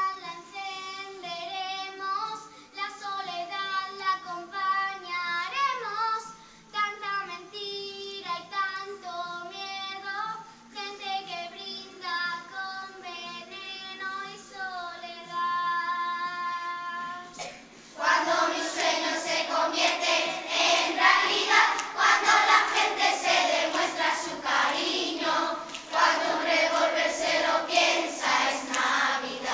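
Children singing a Christmas song: child soloists sing into microphones at first, then about two-thirds of the way in the whole group of children comes in together, suddenly louder, as a chorus.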